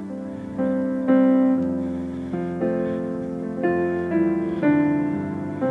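Soft keyboard playing slow sustained piano chords, a new chord struck about every second and fading away.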